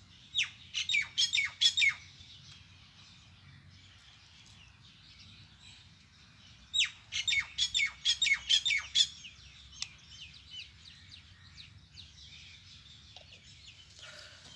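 A bird calling: two bouts of rapid, repeated down-slurred notes a few seconds apart, with a few fainter notes after the second bout.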